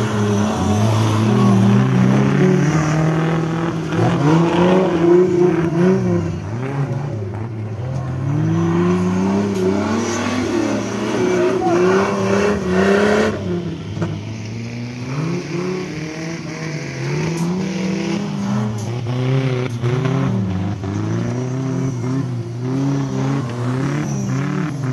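Off-road racing buggy's engine revving hard and easing off over and over, its pitch rising and falling every second or two as it is driven through a muddy course.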